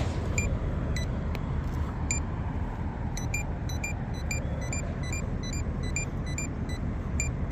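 Small pedestrian-signal speaker mounted under the walk signal sounding short high-pitched ticks, sparse at first and then quickening to about three a second about three seconds in, marking the walk signal. Steady traffic rumble underneath.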